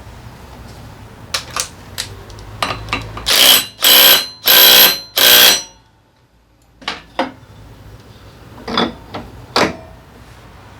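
Power tool running in four short bursts of about half a second each, with scattered clicks and knocks of tools and parts before and after.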